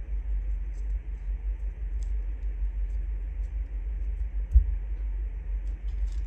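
Steady low rumble, with one thump about four and a half seconds in and faint light ticks from hands pressing paper down on the tabletop.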